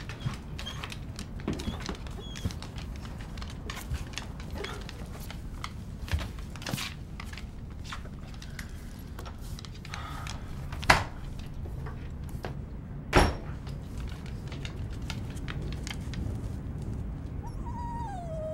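A dog and a person moving about on bare wooden floorboards: scattered light clicks and taps, two louder thuds about 11 and 13 seconds in, and a short whine falling in pitch near the end.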